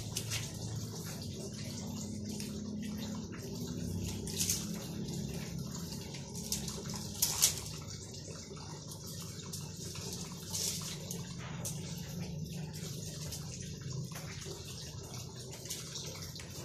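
Two cats eating food out of a plastic bag: wet chewing and licking, with short sharp crinkles of the plastic now and then, the loudest about seven seconds in, over a steady low hum.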